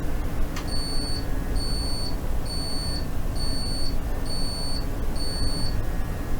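An electronic device beeping six times: short, high-pitched, identical beeps just under a second apart, after a single click, over a steady low rumble.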